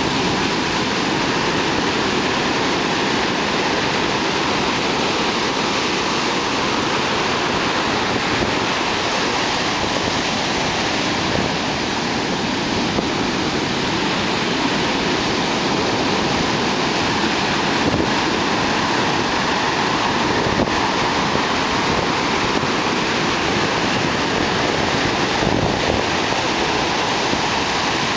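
Heavy ocean surf breaking and washing up the shore: a steady, dense rush of white water with no distinct separate crashes.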